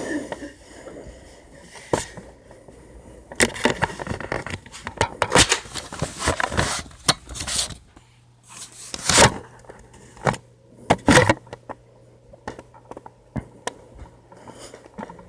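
Irregular knocks, clicks and scrapes, some coming in quick runs; a low steady hum comes in about eight seconds in.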